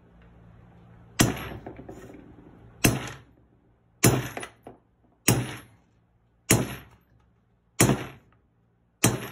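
Brass mallet striking a tappet-block installation tool seven times, about once every 1.3 seconds. Each blow is a sharp metallic knock with a short ring as it drives a press-fit Thruxton-style tappet block into a Triumph 350 unit cylinder barrel.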